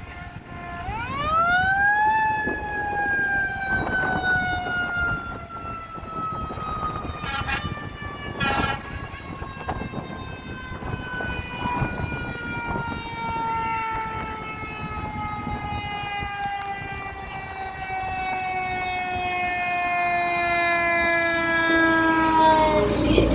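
A fire engine's Federal Q mechanical siren spins up to a high wail about a second in, then winds slowly down in pitch through the rest, over the truck's engine. Two short noisy bursts break in about a third of the way through.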